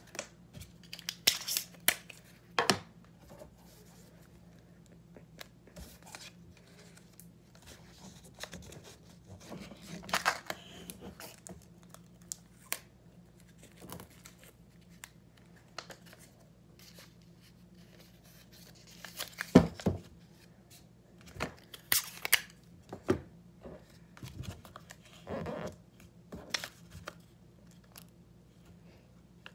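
Paper and clear sticky tape being handled: printed paper sheets rustle and crinkle as they are folded around a fingerboard ledge, and tape is pulled and torn off a dispenser. These come as short rips at irregular intervals, the sharpest about two-thirds of the way through.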